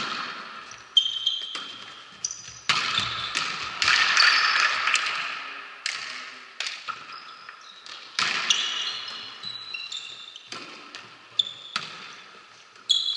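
Volleyball being struck and bouncing on a gym floor: about eight sharp smacks, each echoing through the large hall, with sneakers squeaking briefly on the court between them.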